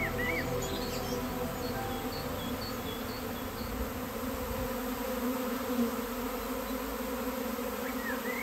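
Honeybee swarm buzzing: the steady, many-voiced hum of a mass of bees.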